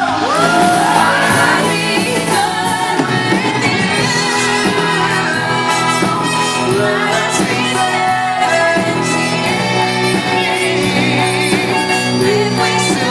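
A woman belting a rock show tune over a live band, her voice sliding up into a high held note about a second in.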